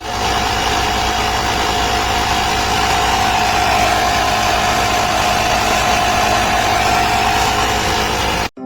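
CIBITA 12V portable tyre inflator running: its small electric motor and piston pump give a steady whine over a buzzing hum, cutting off abruptly near the end.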